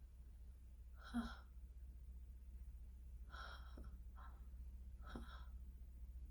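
Faint breathing of a woman dozing off sitting up: short soft breaths about a second, three and a half, and five seconds in, the first the loudest. A steady low hum runs underneath.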